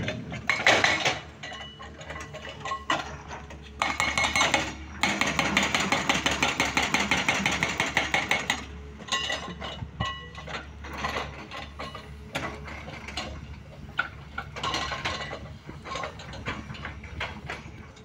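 Limestone rocks tipped from an excavator bucket clattering into a tipper truck's steel body, a dense rattle of impacts for about four seconds in the middle, with shorter bursts of clatter before and after. A steady engine hum runs underneath.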